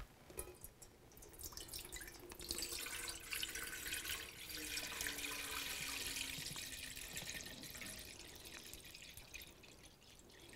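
Apple juice poured in a steady stream from a large plastic bottle into a stainless steel stockpot, splashing on the metal and the rising liquid; it builds from about a second in and tapers off near the end.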